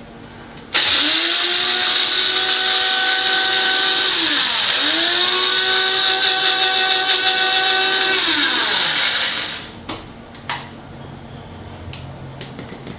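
Electric blade coffee grinder grinding toasted jasmine rice into powder. The motor starts suddenly about a second in and comes up to speed. It slows briefly in the middle and speeds up again, then spins down after about eight seconds.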